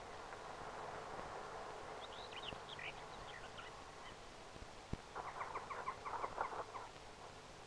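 Birds calling: a few short high chirps, then about five seconds in a rapid, chattering run of calls, the loudest sound here, over a steady hiss, with a few faint knocks.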